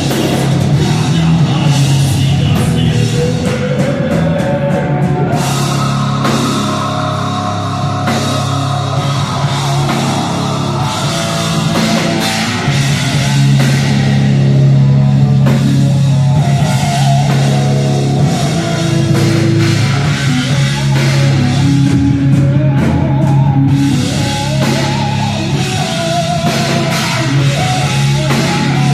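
Rock band playing live at full volume, with electric guitars, bass and drum kit in a heavy rock instrumental passage.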